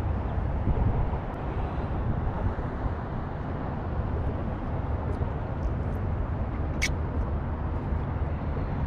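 Strong wind buffeting the microphone, a steady low rumble, with a single sharp click about seven seconds in.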